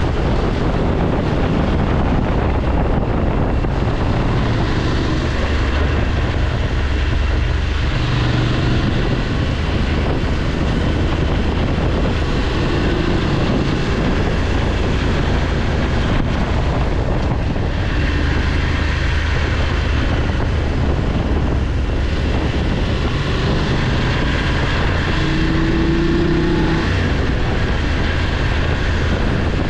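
BMW F850GS Adventure's parallel-twin engine running at road speed, its note shifting briefly now and then, under heavy wind rush on the microphone.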